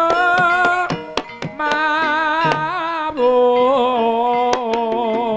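Javanese ebeg (kuda lumping) music: a singer holds long, wavering notes over gamelan accompaniment, with a steady pattern of hand-drum strokes. The voice breaks off about a second in and picks up again.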